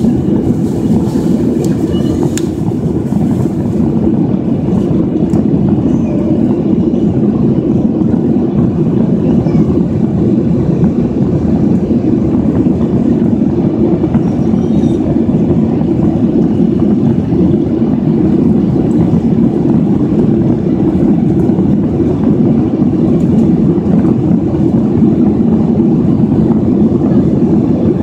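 Steady, unbroken cabin noise of an airliner in flight: the low, even rumble of the jet engines and rushing air, heard from a window seat inside the cabin.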